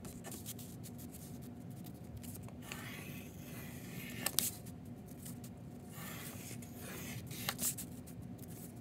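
Pencil scratching on painted paper as feather shapes are traced around a paper tracer, coming in short stretches with a couple of light taps. A faint steady hum runs underneath.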